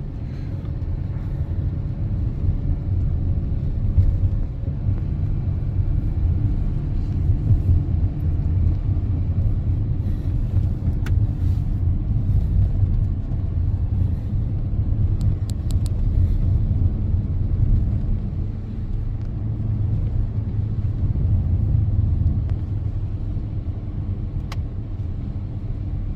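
Steady low road and engine rumble inside the cab of a 2024 GMC Duramax diesel pickup cruising on a wet road, with a few faint clicks.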